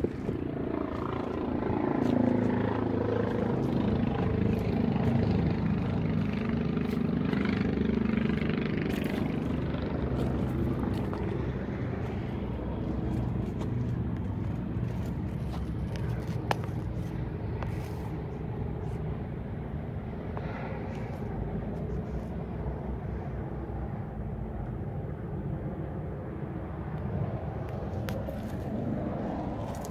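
John Deere 7200 tractor's six-cylinder turbo diesel engine idling steadily.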